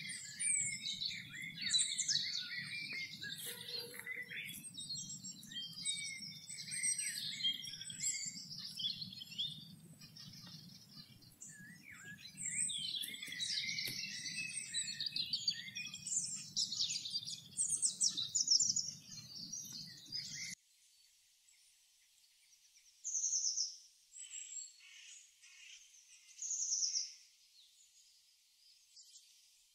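Several songbirds singing at once over a low steady hum. About twenty seconds in the sound cuts off abruptly, and then a single bird repeats a short high call every three to four seconds.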